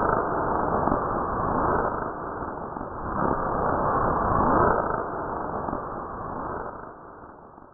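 Sci-fi 'strange space' sound effect: a hissing wash crossed by tones that sweep up and down in arcs. It swells again about three to five seconds in, then fades out toward the end.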